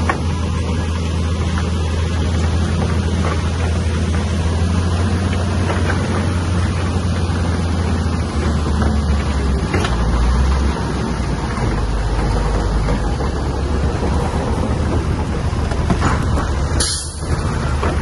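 Shantui bulldozer's diesel engine running steadily under load, its low note shifting about halfway through. A short hiss comes near the end.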